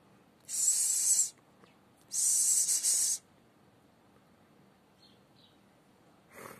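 Two long hisses, each about a second, loud and close, one about a second and a half after the other.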